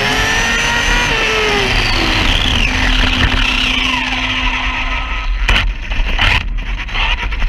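Brushless electric motor whine of a 1717 Typhon RC drag car falling in pitch as it slows, over wind and road rumble, with two knocks near the end.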